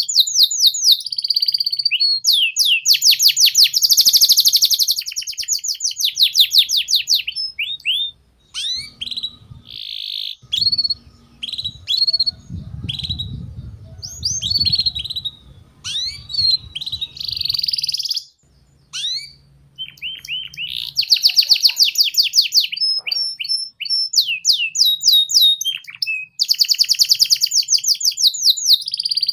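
Domestic canary singing a ngeriwik-style song of rapid rattling trills and chirps, the fast repeated notes coming in long runs. The middle stretch breaks into shorter chirps and pauses over a low background rumble, and the dense trilling comes back loud about two-thirds of the way in.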